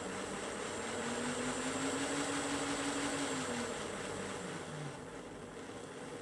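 Electric motor and gear drive of a Rapido Hunslet 16in 0-6-0ST model locomotive whirring on a rolling road while being run in. The pitch rises about a second in, then falls back and fades out about five seconds in.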